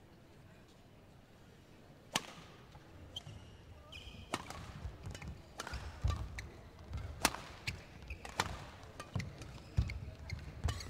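Badminton rally: sharp racket hits on the shuttlecock, with low thuds of the players' footwork on the court, starting about two seconds in and coming every second or so.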